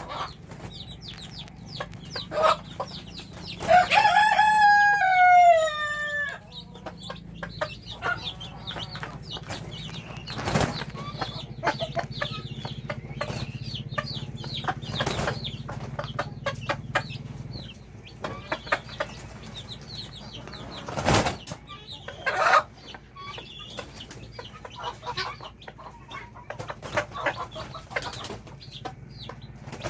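Domestic hen clucking to call her chicks to food, with the chicks' high peeping throughout. A rooster crows once about four seconds in, a long call falling in pitch, and a few sharp knocks stand out.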